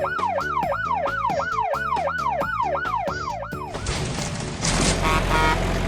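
Cartoon siren sound effect: a falling wail that repeats about three times a second over bouncy children's background music. About four seconds in, a loud noisy rumbling crash takes over.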